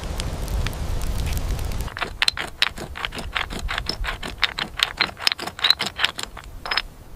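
Rapid sharp clicking of a hand-held stone striking a flat stone, about five clicks a second with a bright ringing edge, as flint is worked. For the first two seconds, a campfire crackles over a low rumble of rain.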